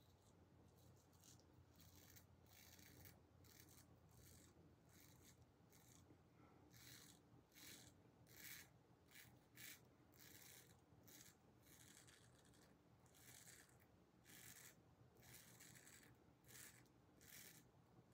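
Antique Kampfe Bros Star safety razor scraping through lathered beard stubble, faint short strokes at about two a second with a denser run in the middle.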